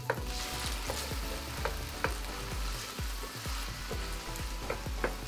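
Diced onions and garlic sizzling in hot oil in a wok, stirred with a wooden spoon that knocks against the pan now and then. The onions are being sautéed until translucent.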